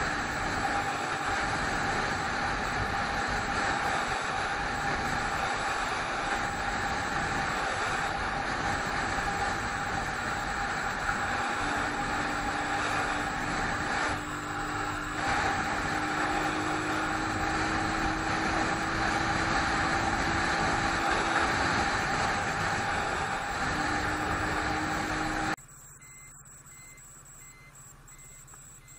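Steady wind and road rush from a camera mounted on a moving motorcycle, with the engine running underneath and a faint tone that climbs slowly in pitch through the middle. Near the end the sound cuts off suddenly to a much quieter hum.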